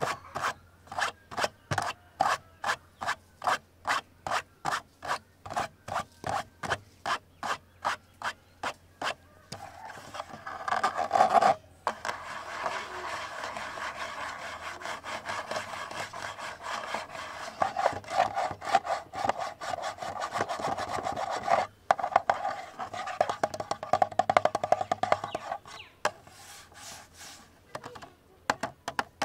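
Close scratching and rubbing on a camera body. Even strokes come about two or three a second, then from about ten seconds in the rubbing turns fast and continuous, with two short breaks, and grows sparser near the end.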